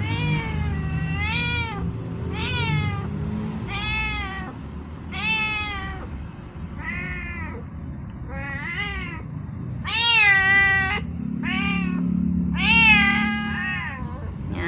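Pregnant domestic cat in early labour meowing over and over, about ten drawn-out calls that each rise and fall in pitch, some lasting about a second. The owner takes the crying for contraction pain.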